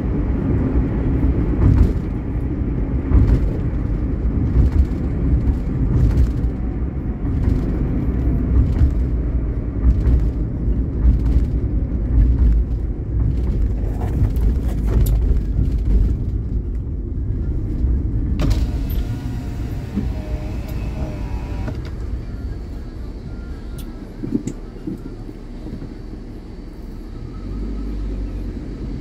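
Steady low rumble of a vehicle travelling along a road, engine and road noise together, with scattered short knocks. It grows quieter about two-thirds of the way through.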